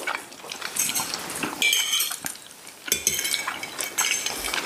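Cutlery and dishes clinking, scattered light clinks with a brief ring.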